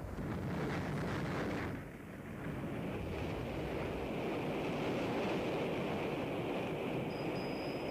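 Rumbling rush of noise from a rocket exploding and breaking up in flight. It is continuous, dips briefly about two seconds in, then comes back.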